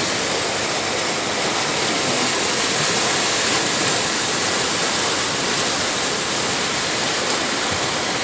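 Swollen, muddy river in flood rushing past, a steady unbroken rush of water.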